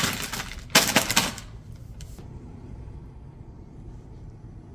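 Plastic salad-kit packaging crinkling as it is handled and packed into the fridge, in two short bursts within the first second and a half, then only faint room noise.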